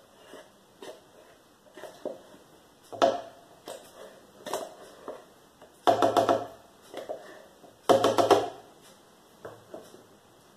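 Small cartons of cream being handled, torn open and squeezed out over a blender jar: a string of crinkling, crunching noises with scattered clicks. The loudest bursts come about 3, 6 and 8 seconds in.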